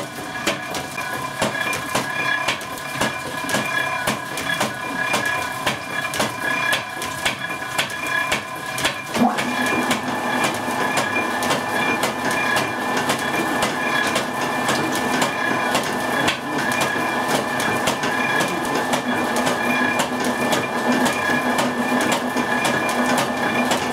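Flywheel-driven pump of an old hydraulic walnut-oil press running, with a fast, regular mechanical clacking over a steady hum while the press squeezes the walnut paste. About nine seconds in a deeper hum joins in and the sound grows a little louder.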